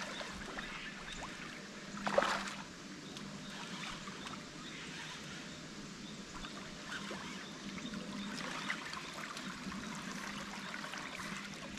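Water splashing and lapping as a hooked Murray cod swirls at the surface, with one short, louder splash about two seconds in.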